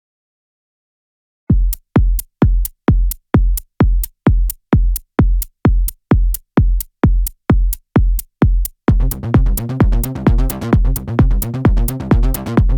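Electronic dance background music: silence at first, then a lone kick drum beating steadily about twice a second, with the full track and bassline coming in about nine seconds in.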